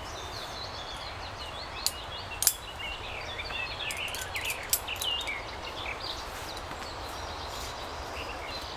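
Small birds chirping in woodland over a steady outdoor background noise, with two sharp clicks about two and two-and-a-half seconds in.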